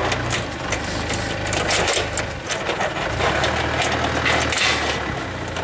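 A steady low machine hum, with frequent clicks and rattles as round multi-pin cable connectors and cables are handled and fitted to a plasma cutter's connector panel.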